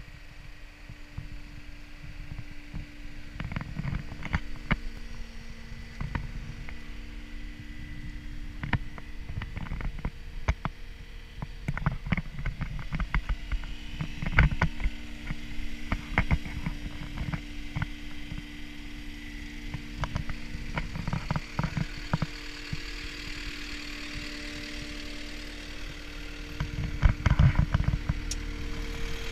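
Caterpillar 259D compact track loader's diesel engine idling steadily as an even hum, with scattered sharp clicks and a cluster of loud thumps near the end.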